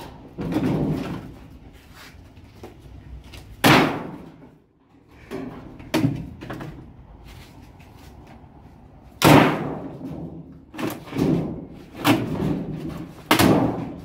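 Plastic parts being wrenched out of a scrap top-loading washing machine and banged against its cabinet: a string of hard knocks and bangs, the loudest about four seconds in and again about nine seconds in, with several more near the end.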